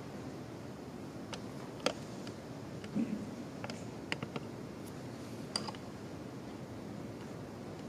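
Scattered small clicks and taps, with one duller thump about three seconds in, as papers and a folder are handled on a wooden lectern and picked up by its microphone, over a steady low room hum.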